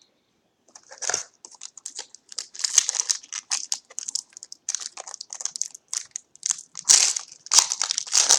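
Crinkling and crackling of a foil trading card pack wrapper being handled, starting about a second in with irregular sharp crackles throughout.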